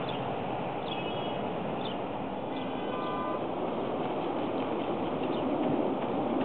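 Steady hum of distant city traffic, with short bird chirps about once a second early on and a brief whistle-like tone about three seconds in.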